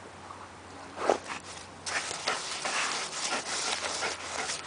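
A dog digging in loose sand with its front paws, rapid scratching and scraping of sand as it excavates a crab burrow, starting about two seconds in. A short loud sound comes about a second in.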